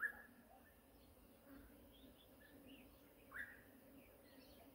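Faint bird calls from the surrounding trees: scattered short chirps, the loudest at the very start and about three and a half seconds in, over a faint steady low hum.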